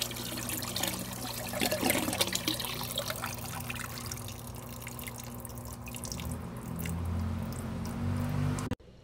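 Water from a flood-and-drain siphon outlet pipe splashing into a plastic sump tank. The stream eases off about halfway through as the siphon finishes draining the grow bed, leaving scattered drips.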